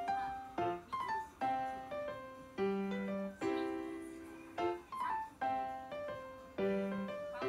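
Background music: a piano playing a slow melody, each note struck and fading away.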